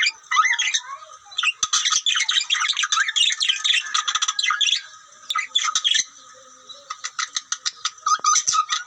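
Domestic canary singing its breeding song: fast trilled phrases and chirps in long loud runs, with short pauses about a second in, near five seconds and just after six seconds.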